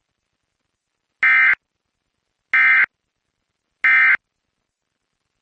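Emergency Alert System end-of-message data tones: three short, identical buzzing bursts of SAME digital code, a little over a second apart, signalling that the Amber Alert message is over.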